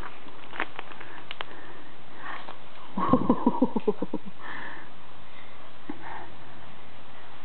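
A toddler makes a quick stuttering breathy sound, about nine short pulses in just over a second, starting about three seconds in and fading out. A few faint clicks come before it.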